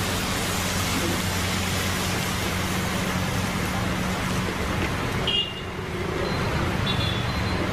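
Water poured in a steady stream into a hot wok of sautéed onions, a rushing splash that stops suddenly about five seconds in. A steady low hum runs underneath throughout.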